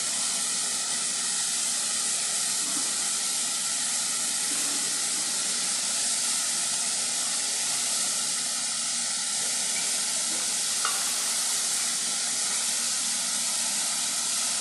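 Sausages and chopped vegetables sizzling steadily as they fry in a pan.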